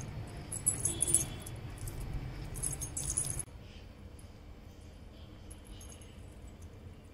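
Silver anklets hung with small bells jingling as they are handled, in several bright bursts during the first three and a half seconds. After that the jingling drops to faint, scattered tinkles as an anklet is fastened.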